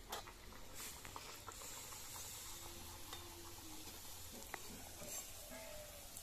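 Luchi (puffed wheat puris) sizzling as they deep-fry in hot oil in a wok, with a few light clicks of a metal slotted spoon as they are turned and lifted out.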